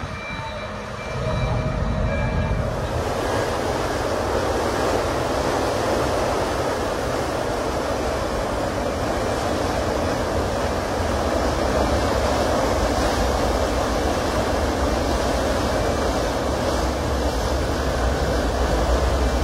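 Background music fades out in the first two seconds or so. Then a steady low rumble and churning water from the Super Star ro-ro ferry's engines and propellers as it pulls away from the quay.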